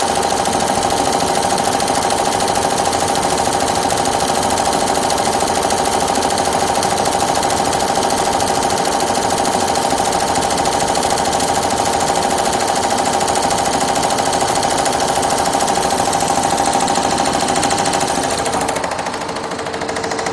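Multi-needle computerized embroidery machine sewing on sequins with its sequin device, running at a fast, steady stitching rate. The sound dips and changes near the end.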